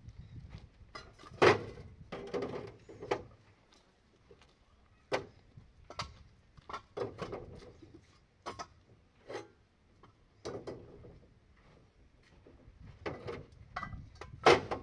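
Irregular knocks and short scraping handling sounds, a sharp loud knock about a second and a half in and another near the end, with quieter taps and scrapes between.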